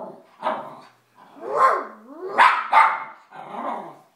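Dog barking excitedly, a run of about five barks, some sliding down and up in pitch.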